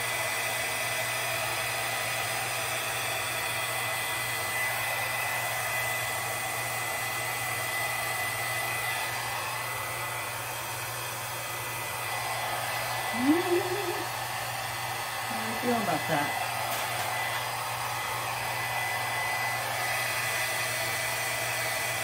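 Small handheld hair dryer running steadily with a thin high whine, blowing wet poured acrylic paint across a canvas. Two brief vocal sounds come a little over halfway through.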